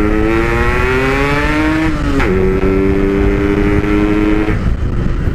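Two-stroke motorcycle, a Yamaha RX King with a Packing Power PK1 exhaust, pulling away while riding. The engine note rises for about two seconds, drops sharply at a gear change, holds steady, then eases off near the end.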